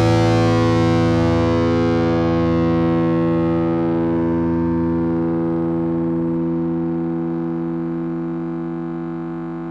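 Final chord on a distorted electric guitar left to ring out. It sustains steadily and slowly fades, the high overtones dying away first, and the lowest note drops out about six seconds in.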